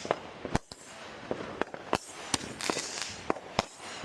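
Fireworks and firecrackers going off in an irregular string of sharp bangs, about ten in four seconds, with a spell of crackling a little past the middle.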